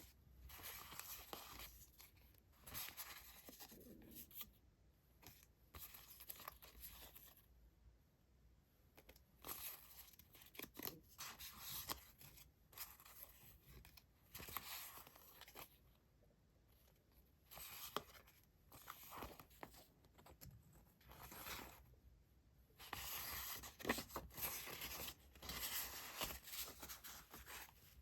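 Paper handled close to the microphone: rustling and tearing in irregular bursts with short pauses, busiest near the end.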